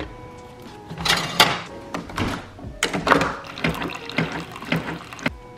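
Single-serve coffee maker brewing into a glass cup: coffee streaming and sputtering in a series of irregular surges that start about a second in and stop just before the end.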